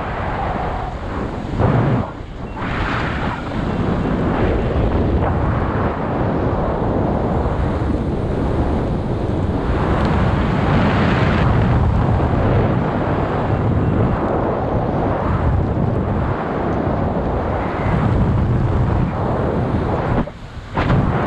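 Loud rushing wind buffeting the microphone during a skydive, swelling and easing, with a brief drop in level about twenty seconds in.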